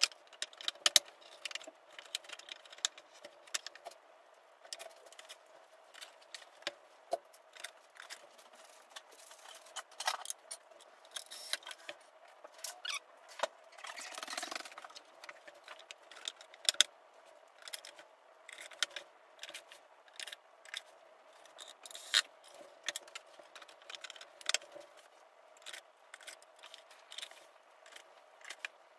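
Clicks, knocks and scrapes of particleboard drawer panels and small fittings being handled and fitted together by hand. A longer scrape comes about halfway through, over a faint steady hum.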